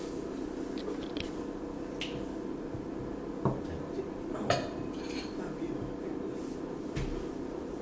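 A steady low hum, with a few light clicks and clinks scattered through it, the sharpest about two, three and a half, and four and a half seconds in.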